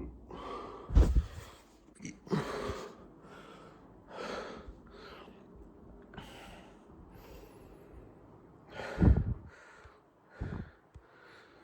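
A person breathing hard in and out, roughly one breath a second, with two loud, deep, short bursts of released gas about a second in and about nine seconds in: air being let out of a belly inflated with swallowed air.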